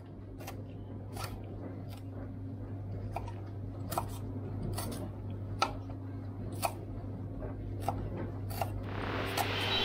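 Knife chopping raw rhubarb on a wooden chopping board: a sharp knock of the blade on the board about once a second, over a low steady hum. Near the end a steady motor whirr comes in, from an electric hand mixer.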